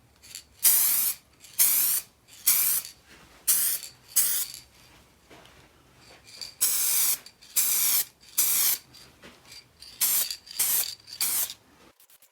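Aerosol spray can hissing in about a dozen short bursts, each under a second, with brief pauses between them. The bursts are light passes laying down a thin first base coat.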